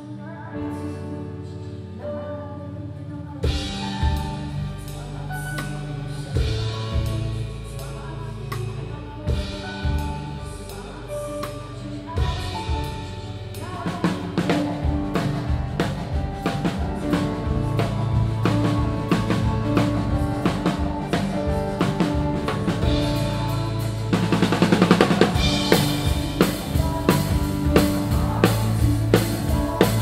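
Drum kit with UFIP cymbals played along with pitched music: the music runs alone for the first few seconds, then the snare, bass drum and cymbals come in and the playing gets busier and louder about halfway, with a wash of cymbals a little before the end.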